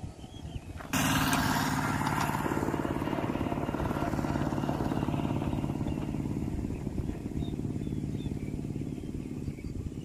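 An engine running steadily with a low, even hum. It comes in suddenly about a second in and eases off a little near the end.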